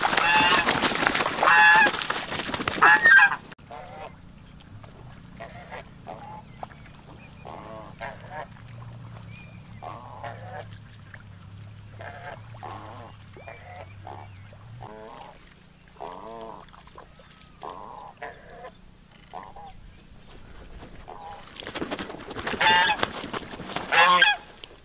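Geese honking: loud, harsh calls for the first few seconds and again near the end, with softer scattered honks between.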